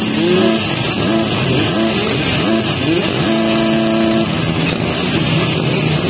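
Several motocross bikes revving on the starting line, their throttles blipped up and down so that the engine notes rise and fall over one another; about halfway through, one engine is held at steady revs for roughly a second.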